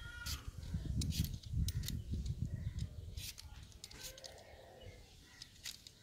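Y-shaped vegetable peeler scraping the skin off a raw green mango: a run of short, light rasping strokes, about one or two a second.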